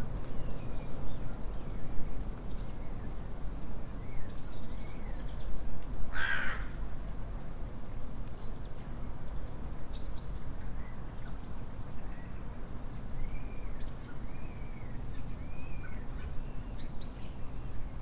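Wild birds calling outdoors: scattered short chirps and whistles from small birds, and one loud, harsh call about six seconds in, over a steady low background rumble.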